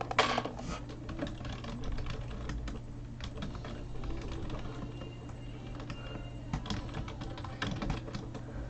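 Typing on a computer keyboard: irregular keystrokes clattering in short runs, over a low steady hum.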